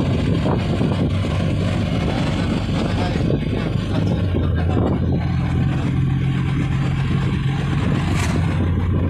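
Tata Magic Express's engine and road noise heard from inside the cab, running steadily at about 80 km/h. The engine pulls without its pickup dropping out, now that the faulty brake switch has been replaced.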